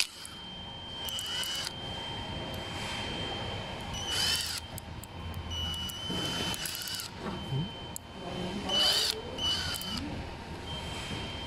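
Cordless drill-driver running in about five short bursts, its motor pitch rising and falling, as it drives small screws.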